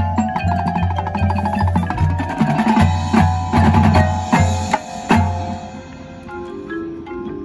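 Marching band playing at full volume: the front ensemble's marimbas and xylophones play rapid repeated notes over a pulsing low bass line, with strong percussion hits. About five and a half seconds in the loud passage stops and a softer held chord follows.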